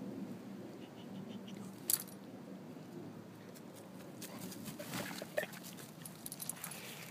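Footsteps and a running dog's paws on a forest floor of dry needles and twigs, faint, with scattered twig crackles and one sharp crack about two seconds in.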